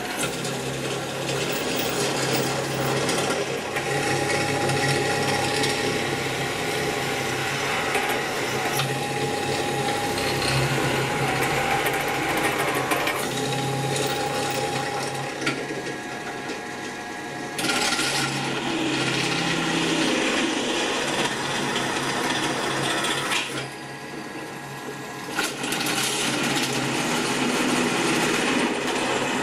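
Drill press running, its centre drill and then twist drill cutting into a metal bar held in a machine vise: a steady motor hum with the grinding of the cut. It drops quieter for about two seconds a little past the middle.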